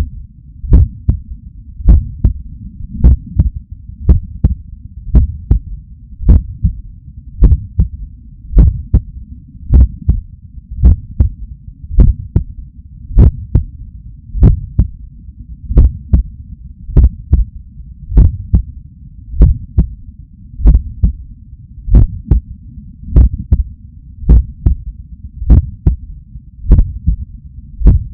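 Human heartbeat picked up by a digital stethoscope on the chest: steady lub-dub pairs at about one beat a second, over a low steady rumble.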